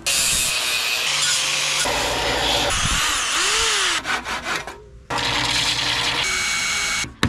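Woodworking tool sounds in quick cuts that start and stop abruptly: power tools running on wood, a hand saw cutting in several quick strokes about four seconds in, then a belt sander running steadily on a small wooden piece.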